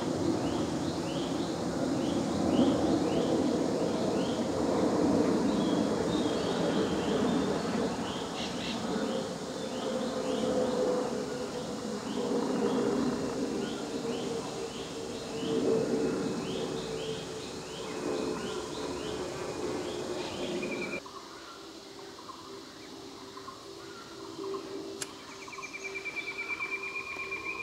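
Forest ambience dominated by a buzzing insect drone with a slowly falling hum, under a steady series of short high chirps about two a second. About three-quarters through, the buzzing drops away abruptly, leaving quieter background and a brief high trill near the end.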